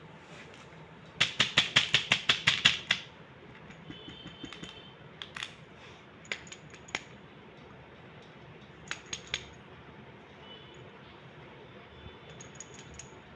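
A hard plastic candy toy being handled and clicked: a quick run of about a dozen sharp clicks about a second in, then scattered single clicks with a few faint, short high tones.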